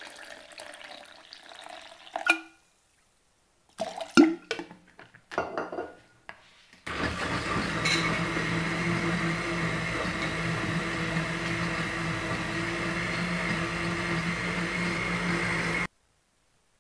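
Water being poured into a blender jug, then a few sharp knocks and clatter as the jug and lid are handled. About seven seconds in, an electric blender starts with a steady hum and whine, blending mango, lemon concentrate, sugar and water for about nine seconds, and cuts off suddenly.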